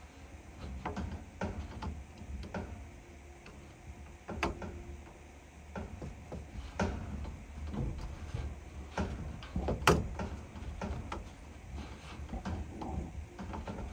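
Irregular clicks and metal knocks as gloved hands work a hand tool inside an old furnace cabinet, the sharpest knock about ten seconds in, over a low steady hum.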